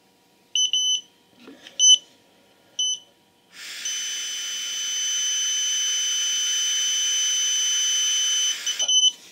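Alcosense Zero breathalyser beeping a few short times as its warm-up countdown ends, then a steady electronic tone for about five seconds over the hiss of a long breath blown through its mouthpiece, cut off by quick beeps as the breath sample is taken.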